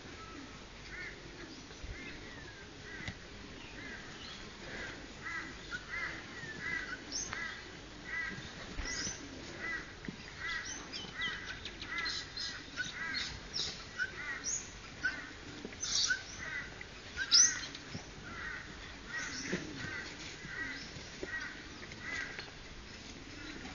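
Birds calling, many short high calls repeated over and over, with a sharper, louder call about seventeen seconds in.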